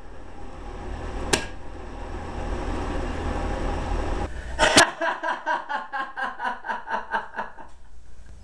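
A man laughing in a quick, even run of about five ha's a second, beginning just after a sharp click about halfway through and lasting nearly three seconds. Before it there is only a faint low hum.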